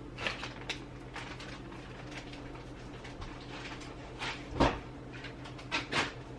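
Scattered light knocks and clatters of kitchen things being handled, such as a cupboard or dishes bumping, with the loudest knock about four and a half seconds in. A steady low hum runs underneath.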